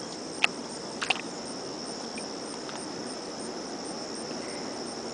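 Steady high-pitched insect chorus trilling without a break, with two short sharp clicks about half a second and a second in.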